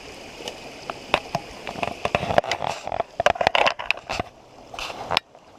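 Footsteps crunching and scraping through dry leaves, twigs and rocks, an irregular run of crackles from about a second in, with a stream flowing in the background.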